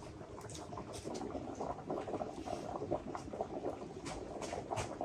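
Large pot of liquid boiling: steady bubbling and crackling with scattered small clicks.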